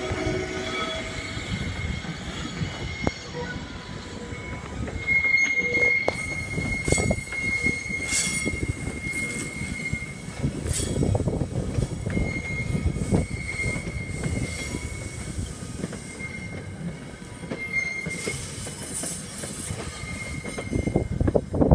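NJ Transit passenger train rolling along the yard's curved track, its wheels squealing over a low rumble. The squeal shifts in pitch at first, then holds as one steady high tone from about five seconds in until near the end. A few sharp clicks cut through it.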